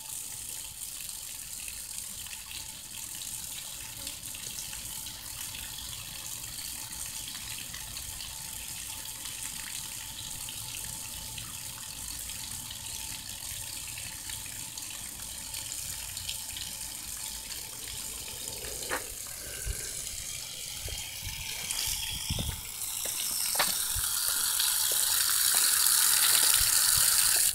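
Water spurting up from the ground into a puddle, a steady gushing hiss. It grows louder over the last few seconds, with a few faint knocks in between.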